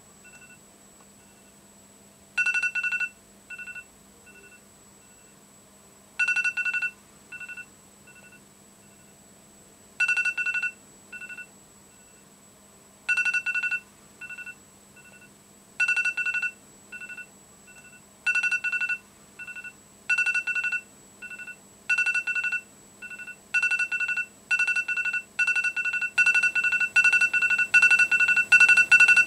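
Electronic beeping: a long two-note tone followed by a few short, fading echo pips, repeated about every four seconds at first and then faster and faster, until the beeps come less than a second apart and are loudest near the end.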